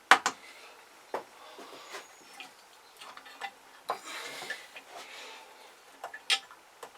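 A couple of quick rubber-hammer taps knocking a gudgeon pin through a piston at the start, then scattered light clicks and a brief scraping rustle of metal engine parts being handled.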